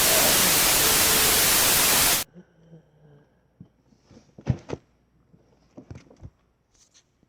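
A loud burst of hissing static, like a lost TV or radio signal, lasting about two seconds and cutting off abruptly. It is followed by a few faint scattered clicks and knocks, one sharper knock a little past halfway.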